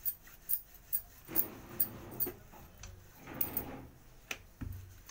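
Wooden rolling pin and hands working a stuffed potato paratha on a stone rolling board: two soft rubbing, rolling strokes and a low knock near the end. A steady light ticking, about two ticks a second, runs underneath.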